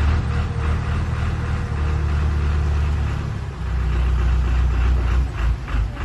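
A heavy vehicle engine running steadily with a low rumble, over the rush of fast-flowing floodwater.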